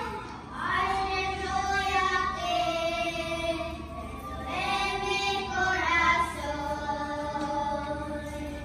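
A small group of children singing a First Holy Communion song together, in two phrases of long held notes that get softer near the end.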